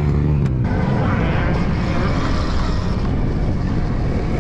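Stark Varg electric motocross bike being ridden: a steady low hum stops about half a second in, then a continuous rush of riding noise and wind over the camera microphone.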